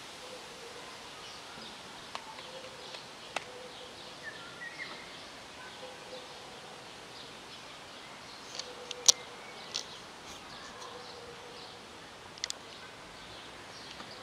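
Outdoor ambience: a steady hiss with faint chirps and a scattering of sharp clicks, the loudest about nine seconds in.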